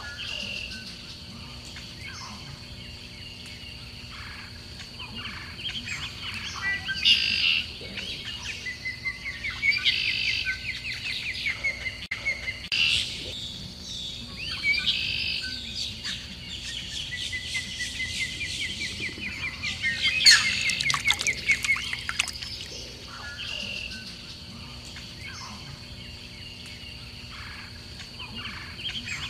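Small songbirds chirping and trilling, several calls overlapping, with a steady thin high tone underneath.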